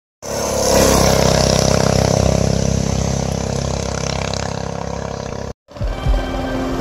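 Small engine of a homemade shopping-cart go-kart running at speed, loudest about a second in and slowly fading. It cuts off abruptly after about five and a half seconds.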